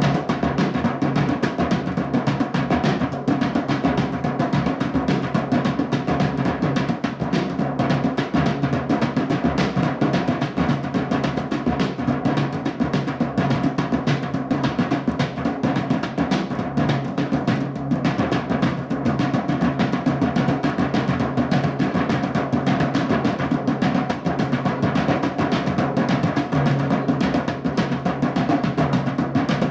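Drumming music: fast, continuous drum strokes running into rolls, with no pauses.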